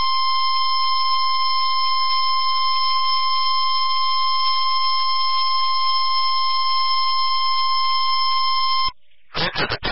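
NOAA Weather Radio warning alarm tone, a steady single-pitch 1050 Hz tone sounded for the weekly test. It starts abruptly, holds unchanged for about nine seconds and cuts off suddenly. A synthesized broadcast voice begins shortly after.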